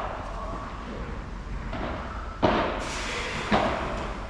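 Padel rally: two sharp hits of the ball, about a second apart, each followed by a brief echo in the covered hall.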